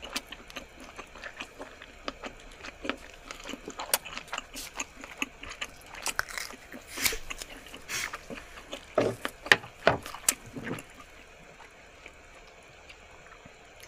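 Close-miked mukbang eating sounds from raw squid: irregular wet clicks and squelches of scissors cutting and chewing the squid, densest and loudest about nine to ten seconds in.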